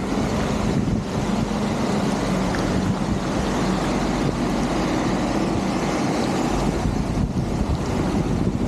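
Steady rush of flowing water, with wind buffeting the microphone.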